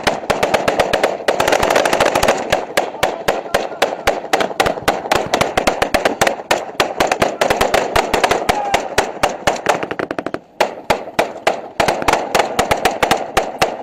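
Sustained small-arms gunfire: a dense run of rapid shots and bursts from several weapons, with a short lull about ten seconds in, stopping suddenly near the end.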